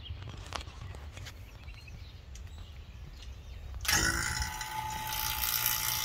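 A 4 CFM electric A/C vacuum pump switches on about four seconds in and runs with a steady buzzing whine, starting to pull a vacuum on the truck's air-conditioning system. Before it starts there are only a few faint clicks.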